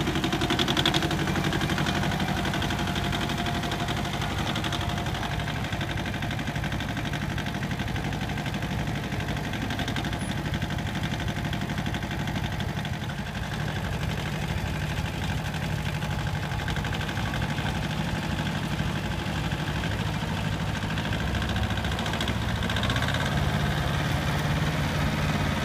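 Yanmar YM1300D compact tractor's diesel engine running steadily as the tractor drives slowly, its note rising slightly near the end.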